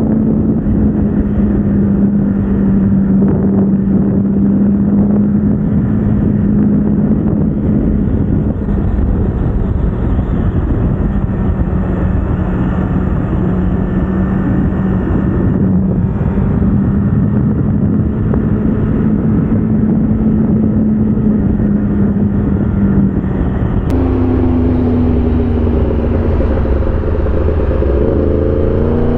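Motorcycle engine running at a steady speed under wind rush while riding. Near the end the engine note climbs as it accelerates.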